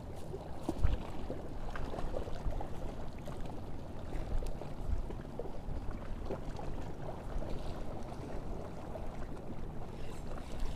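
Steady low rumbling noise of wind and lapping water at the edge of the sea, with a single sharp knock about a second in.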